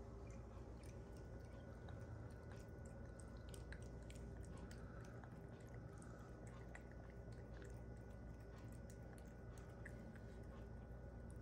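Cat licking and chewing soft food off the tip of a metal utensil: faint wet smacking with many small clicks.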